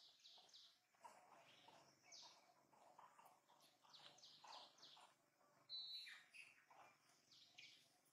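Faint bird chirping: many short, high chirps scattered throughout, with a brief whistled note about six seconds in.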